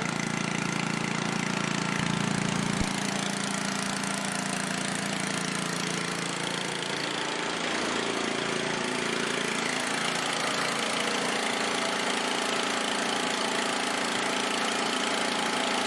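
13 HP Honda single-cylinder engine running steadily on wood gas from a gasifier, its note shifting slightly about halfway through.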